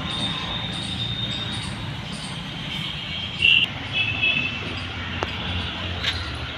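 Steady low rumble of a motor vehicle. A short, loud, high-pitched beep comes about halfway through, followed by a few fainter short high tones and a sharp click near the end.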